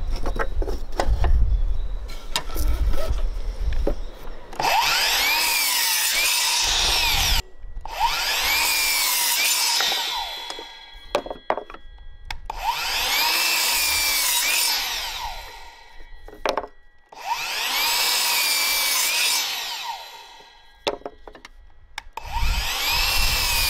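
Metabo KGS 18 LTX 216 cordless sliding mitre saw, its brushed 18-volt motor spinning a 216 mm 40-tooth blade, cross-cutting a length of timber into short blocks. There are five cuts of about three seconds each, and the motor's whine dips as the blade bites into the wood. Before the first cut come a few knocks as the timber is set against the fence.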